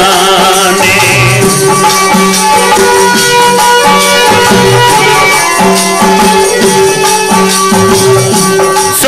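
Instrumental interlude of a Hindi devotional bhajan: sustained drone notes and a melody line, with rattling, jingling percussion keeping the beat.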